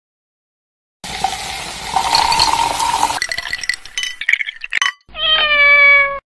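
A fizzy drink poured over ice in a tall glass, hissing, then stirred with the ice clinking against the glass, then one loud cat's meow about a second long, falling slightly in pitch near the end.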